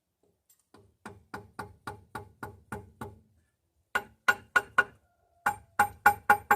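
Hammer blows on a stuck intake manifold of a Ford 289 V8, knocking it loose from its gaskets. About eight lighter strikes come at roughly four a second, then two quicker volleys of louder blows with a metallic ring.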